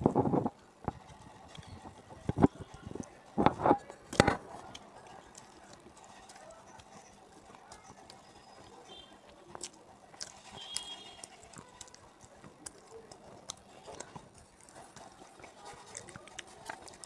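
Close-miked mouth sounds of someone chewing a hard, crunchy food: a few loud crunches in the first four seconds, then quieter chewing and small mouth clicks.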